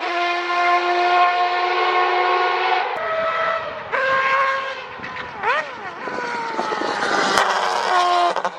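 Historic Group C race car engine at high revs. Its pitch holds steady, steps down twice a few seconds in, dips and climbs back briefly about halfway, then sinks slowly near the end.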